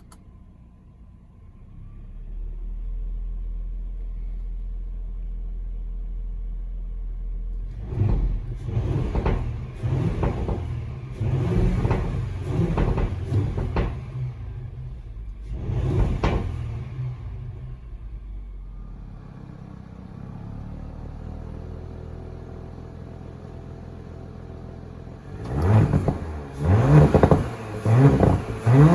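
2019 Audi SQ5's turbocharged V6 through its stock exhaust on a cold start. About two seconds in the engine sound comes up to a steady idle. From about eight seconds it is blipped in a quick string of revs for about nine seconds, then it settles back to idle. Near the end it is revved hard again, its pitch sweeping up with each rev.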